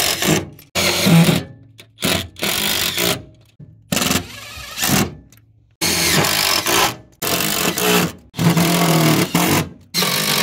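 Power drill driving self-tapping screws into a metal lid frame, the motor running in short bursts that start and stop sharply, about eight times.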